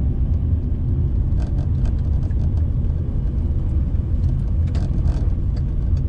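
Car driving along a city street, heard from inside the cabin: a steady low rumble of engine and tyre noise.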